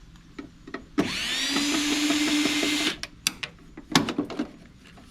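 A power drill spins up and runs for about two seconds, its pitch rising and then holding steady, as it backs out a screw from the PTAC unit's sheet-metal control panel. Sharp clicks and clanks of metal parts come before and after it.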